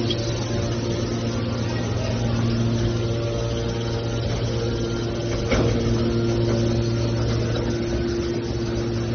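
Hydraulic aluminium baler machine running: its motor and pump give a steady hum, with a single knock about five and a half seconds in.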